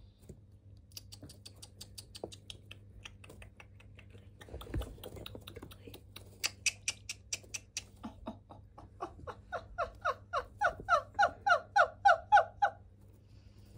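Domestic ducklings peeping: faint quick high peeps at first, then from about nine seconds a run of louder, evenly repeated peeps, about three a second.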